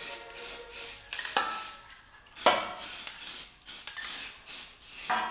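Aerosol can of high-heat primer sprayed in short hissing bursts, about two or three a second, with a brief pause near the middle.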